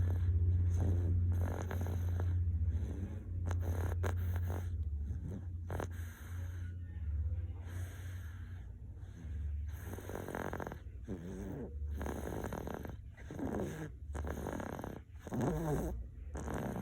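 A two-year-old boy snoring in his sleep, a snore on each breath, repeating every one to two seconds.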